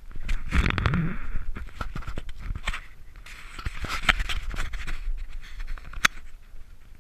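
Scraping, rustling and clicking on a body-worn action camera as the wearer moves about and casts, with a cluster near the start, another about halfway through and one sharp click about six seconds in.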